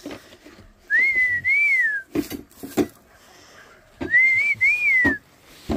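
A man whistling to call chickens in: two whistled phrases, each two rising-and-falling notes, about a second in and again about four seconds in. A few short knocks fall between them.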